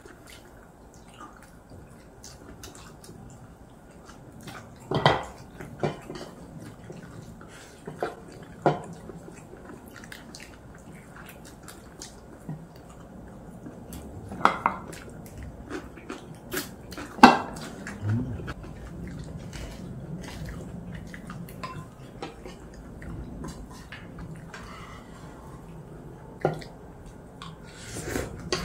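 Chopsticks and a spoon clinking and tapping against ceramic plates and bowls during a meal: scattered sharp clinks, a few louder than the rest.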